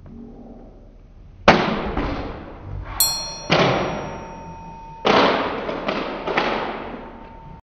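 A series of loud crashing impacts, each ringing out as it dies away. A bright metallic clang comes about three seconds in, and the heaviest crashes come at about one and a half, three and a half and five seconds.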